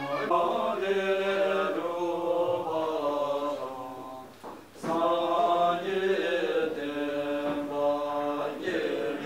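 Men chanting a Buddhist prayer in long, held phrases, with a short break for breath about halfway through.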